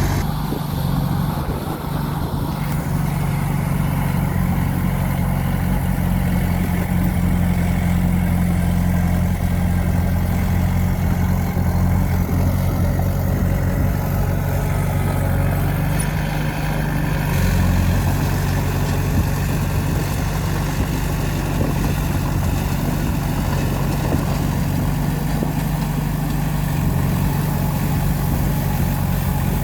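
Bulldozer's diesel engine running steadily under load, with small shifts in engine note about 2 seconds in and again a little past halfway.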